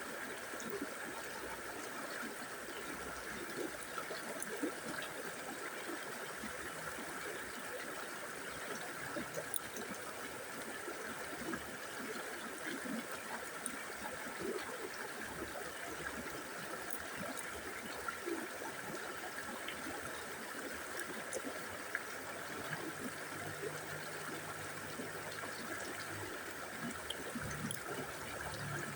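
A river flowing, a steady, even rush of water. A low steady hum joins in during the last several seconds.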